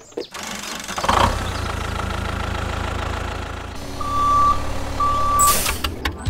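Tractor engine sound effect starting about a second in, then idling steadily, with two long reversing beeps near the end and a short hiss just after them.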